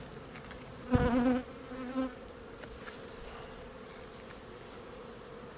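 Honeybees humming steadily from an open hive, with a louder buzz about a second in and a shorter one near two seconds, as bees fly close past the microphone.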